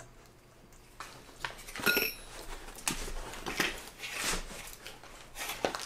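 Light ticks and scrapes of a hex key turning a small screw into a metal dual-gear extruder housing, with one sharp metallic clink about two seconds in.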